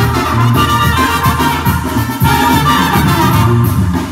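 Live Mexican banda music: trumpets and trombones playing over a tuba bass line.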